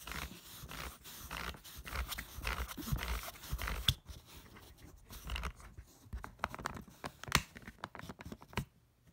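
Fingers rubbing and scraping over a Verage suitcase's plastic three-dial combination lock and the fabric around it, with several sharp clicks from the lock, the loudest about four and seven seconds in.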